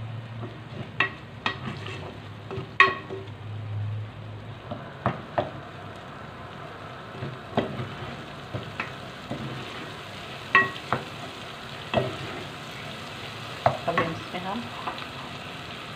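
Wooden spoon stirring a frying tomato-and-spice masala in an aluminium saucepan: a steady sizzle of oil, with sharp knocks and scrapes of the spoon against the pot every second or two.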